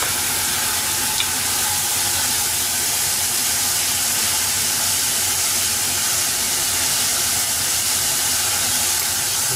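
Steady, loud rushing hiss with a faint low hum from kitchen equipment running.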